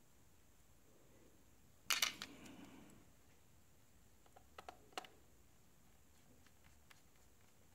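Handling of a small precision screwdriver, a tiny screw and an iPad glass digitizer panel. There are sharp clicks and a brief rattle about two seconds in, then a few light ticks as the screw is driven into the panel's edge.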